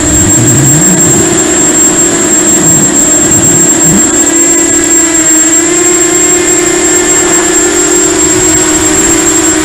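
Quadcopter's electric motors and propellers droning loudly and steadily, heard from the camera on board the drone, with a thin high whine above the drone and small shifts in pitch.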